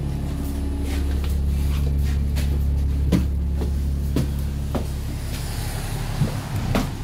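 Steady low hum of a double-decker bus's engine running, with a few scattered knocks and thuds of footsteps climbing the stairs to the upper deck.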